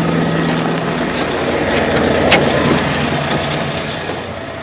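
Volvo VNL670 semi truck's diesel engine idling, a steady noisy rumble, with a sharp click about two seconds in; the sound grows quieter near the end.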